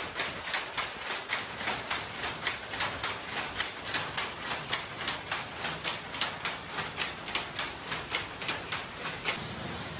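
Jacquard loom weaving Banarasi saree silk, running with a steady rapid clacking of about three and a half beats a second, which stops shortly before the end.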